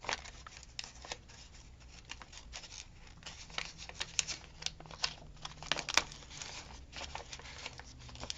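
Thin paper stickers and their sheet being handled and picked at to peel them: scattered small crinkles, rustles and light taps.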